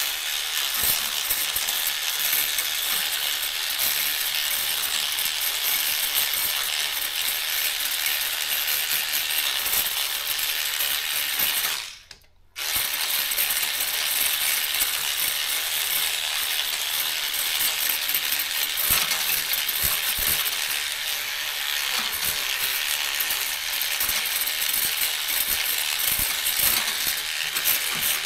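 Electric cleaning brush running and scrubbing soapy plastic typewriter keys of a Daro 20, a steady high hiss with light clattering of the keys. It cuts out for about half a second near the middle, then starts again.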